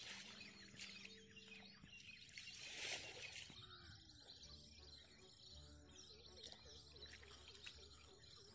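Faint outdoor ambience of small birds chirping and twittering, with a brief rustle of noise about three seconds in.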